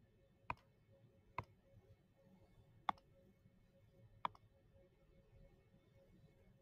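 Four sharp computer mouse clicks, unevenly spaced about one to one and a half seconds apart, over near silence with a faint steady hum.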